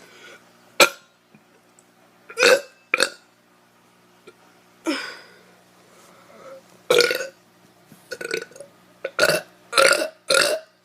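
A teenager burping on purpose: a string of short, separate belches, spaced out at first and then coming in quick succession in the last couple of seconds.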